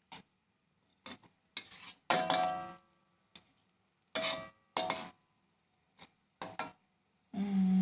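Metal spoon scraping and knocking against a metal cooking pan while stirring fish in broth, in about eight separate strokes, several of them leaving a brief metallic ring.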